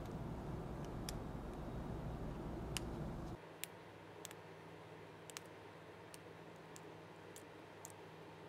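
Plastic cable chain (drag chain) links being snapped open one by one by hand: scattered sharp clicks, about one or two a second. A low background hum cuts off abruptly about three seconds in.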